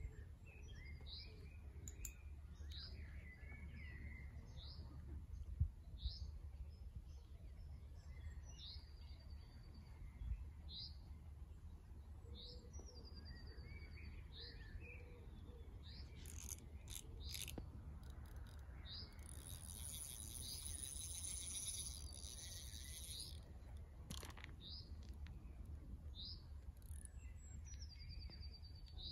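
Birds singing: one bird repeats a short high call about once a second, with a few brief trills and a denser burst of song about two-thirds of the way in. A low thump about five seconds in and a few clicks a little past the middle, over a steady low rumble.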